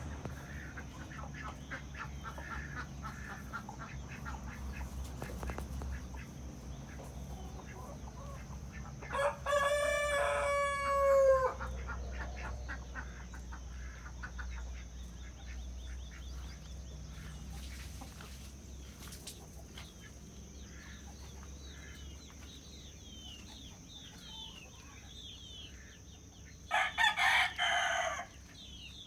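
Rooster crowing once, a long drawn-out call about a third of the way in, over hens clucking softly. Another short loud call comes near the end.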